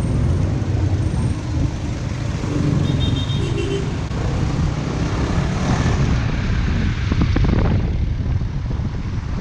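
Motorcycle riding in traffic: the Suzuki Raider's engine running steadily under wind noise on the camera microphone, with surrounding road traffic.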